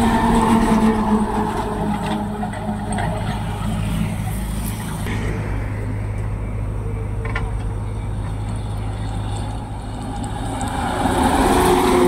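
Heavy box trucks driving past close by, engine and tyre noise. It is loudest at the start as one truck goes by, dies down through the middle, and builds again near the end as another passes.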